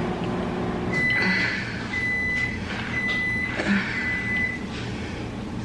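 Electronic beeping: four steady high beeps about a second apart, each lasting about half a second, starting about a second in. Under them, the wet rustle of chopsticks lifting and mixing sauced noodles in a bowl.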